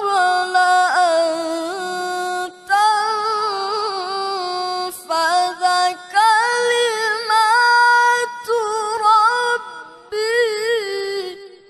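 A male Quran reciter's voice in melodic tilawah, sung in a high register: long held notes with wavering melismatic ornaments, in several phrases broken by short pauses for breath.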